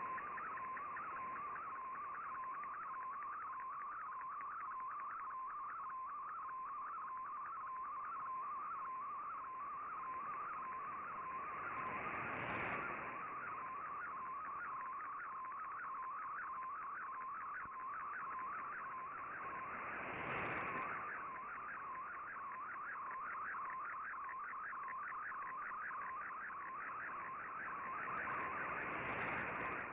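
Shortwave MFSK picture transmission heard through a communications receiver: a single tone just above 1 kHz warbling up and down in a fast, steady repeating pattern as each image line is sent, over constant band hiss. Three short swells of hiss and static come through.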